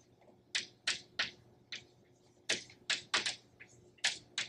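Chalk writing on a blackboard: an irregular run of sharp taps and short scratches as the letters are written.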